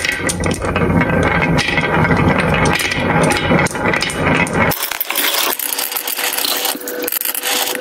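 Glass marbles rolling down a HABA wooden wave-groove slope: a low rumble of rolling on wood under dense clicking as the marbles knock into one another and pile up in the hollows. About five seconds in, the low rumble drops away abruptly, leaving only the bright clicking.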